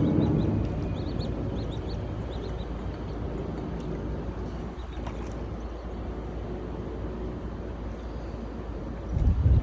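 Small birds chirping in short, high notes, most thickly in the first few seconds, over a steady low rumble, with a louder low swell near the end.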